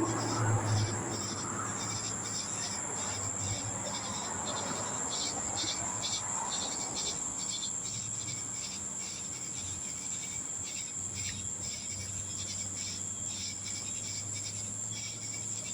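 Night insects outdoors: a continuous high-pitched trill with crickets chirping in an even rhythm of about three chirps a second, over a low steady hum.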